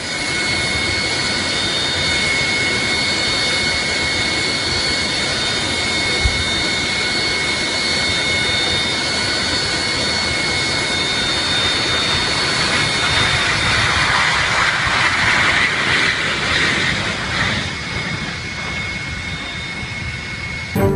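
Boeing 737 jet engines running close by with a steady high-pitched whine over a rushing noise. The rush swells louder about two-thirds of the way through, and the whine cuts off near the end.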